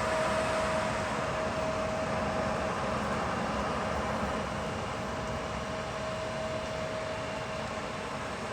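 Jet airliner engines running at idle while taxiing: a steady rushing noise with one constant whine, easing off slightly partway through.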